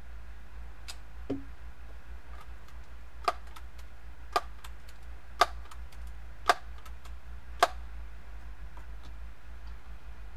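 Daisy PowerLine 901 multi-pump air rifle being pumped: five sharp clacks of the forend pump lever about a second apart, with fainter clicks between them. A duller knock comes about a second in.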